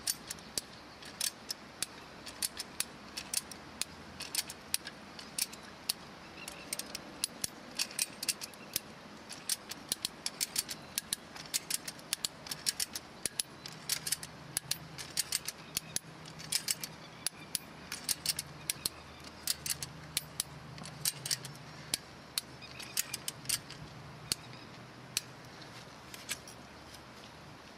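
Strainrite XT1 ratchet wire strainer being cranked with its ratchet handle, tensioning fence wire. Sharp ratchet clicks come in quick, irregular clusters as the spool's gear teeth pass the spring catch.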